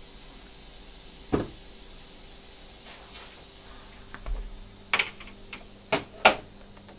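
Scattered sharp knocks and clicks as a spray gun's plastic cup and metal parts are handled and fitted together on a steel counter: one about a second in, then a cluster of several more, the loudest near the end. A faint steady hum and a thin high whine run underneath.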